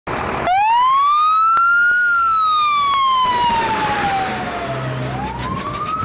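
Fire truck siren wailing: starting about half a second in, its pitch climbs for about a second and a half, sinks slowly for three seconds, then starts climbing again near the end.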